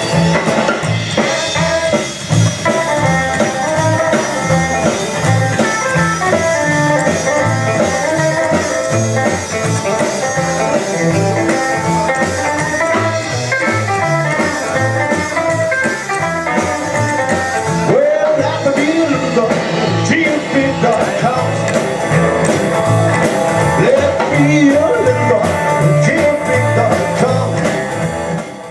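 Rockabilly band playing live, guitar over a steady bass beat. The recording cuts off abruptly at the very end.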